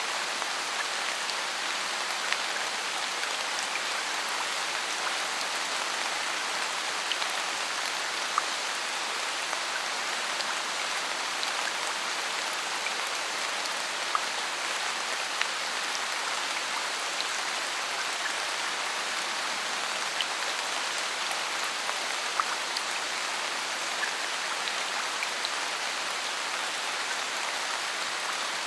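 Steady rain falling on forest foliage, an even hiss with scattered louder single drips landing close by.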